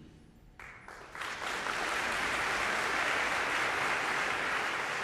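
Concert audience applauding. It starts about half a second in and builds within a second to full, steady clapping.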